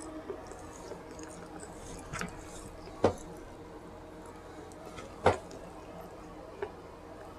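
A person chewing food with quiet, wet mouth sounds, broken by two sharp, loud clicks about two seconds apart.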